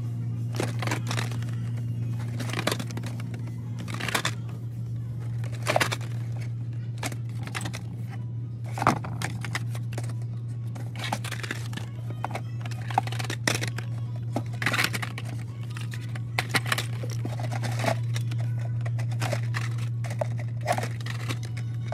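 Plastic blister packs and card backings of diecast toy cars crinkling and rattling in the hand as they are picked up and flipped through one after another, in short crackly bursts over a steady low hum.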